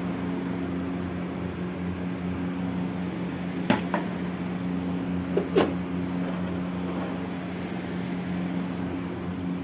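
A steady low hum runs throughout. A few sharp metallic clinks come about four and five and a half seconds in, as a steel puja plate is set down on a plastic chair.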